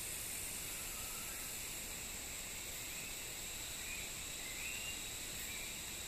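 Rainforest ambience: a steady chorus of insects holding several high tones over a constant hiss, with a few brief faint chirps near the middle.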